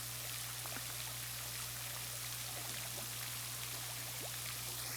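Water spray from a sprinkler falling onto a pond surface: a steady hiss of pattering droplets with small scattered ticks, over a steady low hum.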